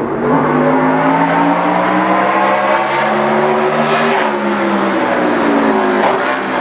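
Toyota Camry NASCAR stock car's V8 engine accelerating on the far straight, loud and echoing. The engine note climbs steadily for about four seconds, then falls away.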